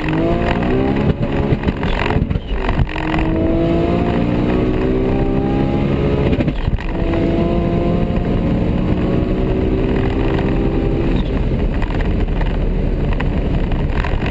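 Toyota Supra with a big single turbo accelerating flat out at high speed, heard from inside the cabin. The engine note climbs in pitch through the gears, with gear changes about two seconds in and again near seven seconds. After a third pull the note drops away near the end into a steady rush of noise.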